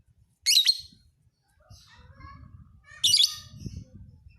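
Lovebird chirping: two loud, shrill bursts of rapid chirps about two and a half seconds apart, with softer twittering between them.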